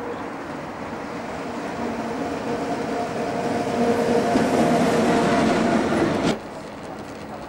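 SNCF electric locomotive running light, passing close by with a steady hum over rolling rail noise. It grows louder as it comes nearer, then cuts off suddenly about six seconds in.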